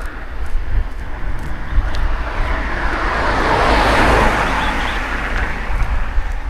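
A vehicle passing on the road, its tyre and engine noise swelling to a peak about four seconds in and then fading away, over a steady low rumble of wind on the microphone.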